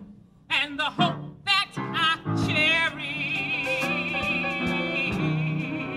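A woman singing a show tune in full voice to piano accompaniment. After a brief pause she sings a few short phrases, then holds one long note with a wide vibrato from about halfway through until near the end.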